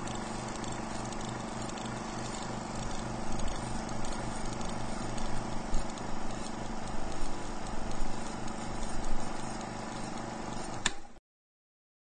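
Vintage film soundtrack noise: a steady hiss and hum with a fast, even low pulse and scattered crackles and pops, which grow louder a few seconds in. It cuts off abruptly with a click near the end.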